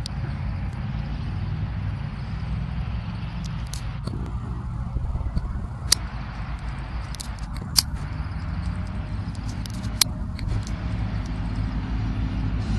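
Low, steady rumble of CN diesel locomotives (an SD70M-2 leading) approaching in the distance, growing slightly louder near the end, with a few sharp clicks along the way.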